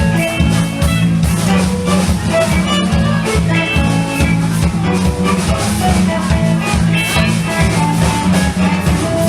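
Live band playing an instrumental passage: guitar over a steady drum beat.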